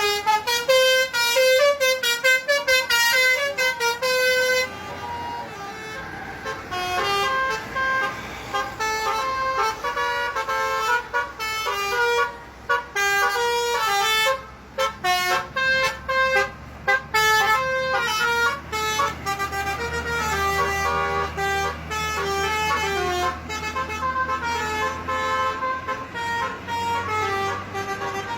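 Tour bus's basuri musical horn (telolet horn) playing a tune of quick stepping notes: fast alternating notes at first, then about four seconds in a slower melody with short breaks. The bus's engine runs low underneath from about six seconds on.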